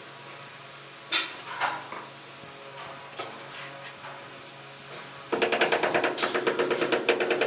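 Rubber mallet tapping a ceramic wall tile in a fast, even run of ringing taps, several a second, bedding the tile into its adhesive. Two single knocks come about a second in, before the run starts.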